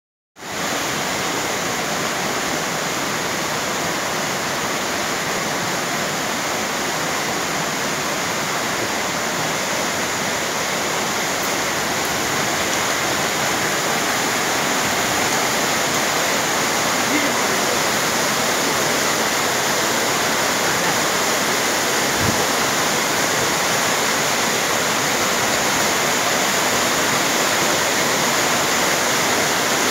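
Waterfall: water cascading in a steady, loud rush.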